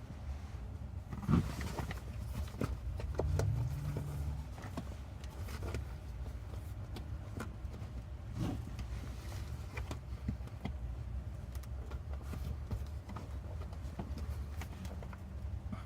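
Hands working the Cybertruck's passenger seat back: irregular small clicks, knocks and rustling of the seat upholstery and plastic back panel as foam is pushed in behind it, over a steady low hum. There is a sharper knock about a second in and a brief low droning sound around three to four seconds in.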